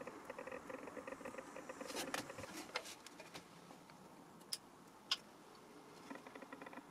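Fine, fast rattling and scraping from copper wire ends being twisted together by hand, then two short sharp clicks about half a second apart as the buttons of a cordless soldering iron are pressed to switch it on. A little more handling rattle near the end.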